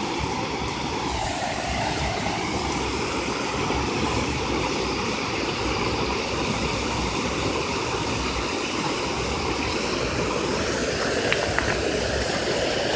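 Steady rushing of river water pouring over and across a low-water bridge, an even, continuous roar of flowing water.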